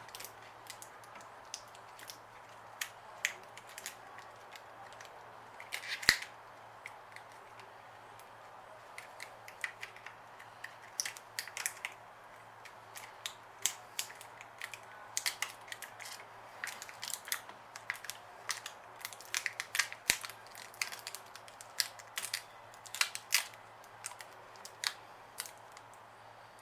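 Irregular crackling and clicking of thin plastic tint film being handled, peeled and pressed onto a plastic light lens, with a louder burst about six seconds in, over a faint steady hum.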